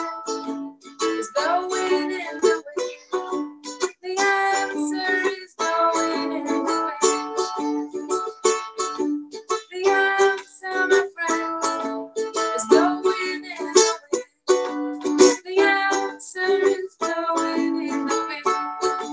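A woman singing a song to her own plucked acoustic string accompaniment, the voice and strings sounding in a small room.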